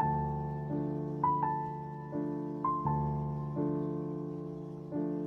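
Background music: slow, gentle piano, with chords struck one after another and left to ring and fade, and a few higher melody notes above them.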